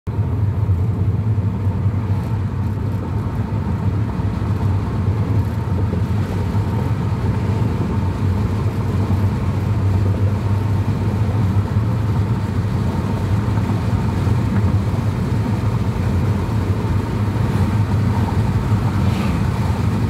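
Steady low rumble of a car driving along a concrete highway, engine and tyre noise heard from inside the cabin.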